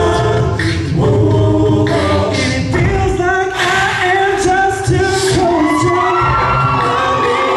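Male a cappella group singing amplified through microphones: several voices holding harmonies under a lead voice that slides in pitch, over a low sung bass line, with beatboxed vocal percussion hits.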